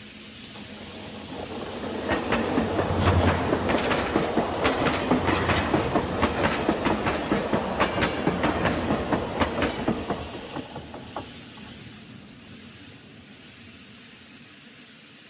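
N-scale model trains rolling past on the layout, a passenger train and a line of boxcars, their wheels clicking over the rail joints in a quick, uneven clatter. The clatter builds over the first two seconds and fades away after about ten seconds.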